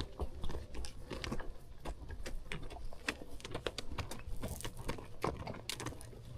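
Horse hooves clip-clopping on the trail during a ride, an irregular run of sharp clicks and knocks several times a second, with a low rumble underneath.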